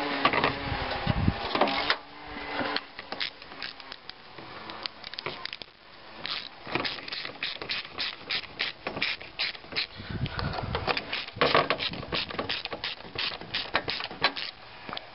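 Hand ratchet clicking in quick runs as a socket drives in the bolts that hold a fan blade to a new fan clutch hub.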